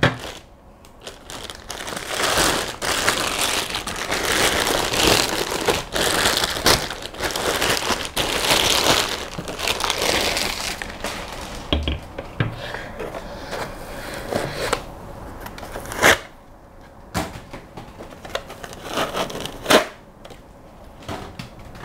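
Clear plastic packaging bag crinkling and rustling as it is pulled off a small 3D printer, loudest in the first half, then scattered crackles with a few sharp knocks later on.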